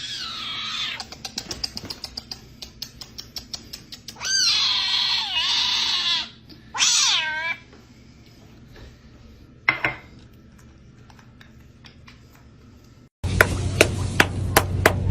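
A cat meowing four times: a call at the start, a long drawn-out meow about four seconds in, another right after it, and a short one near ten seconds. From about thirteen seconds a loud, quick run of sharp taps follows.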